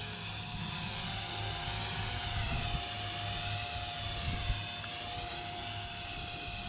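Small drone's motors and propellers whining steadily in flight, the pitch of the higher tones drifting slowly up and down.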